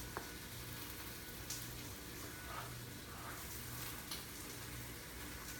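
Faint sizzling of small pieces of chicken frying in a pan, with a few light knife taps on a cutting board as dried apricots are cut up, over a low steady hum.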